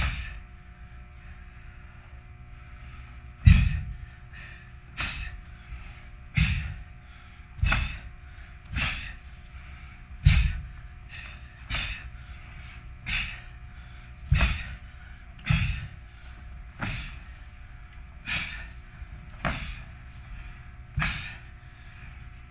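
Taekwondo practitioner in a cotton dobok performing the pattern Eui-Am: a sharp breath out and a snap of the uniform with each technique, sometimes with a foot thud, about fourteen in a row every second or so after a pause of about three seconds.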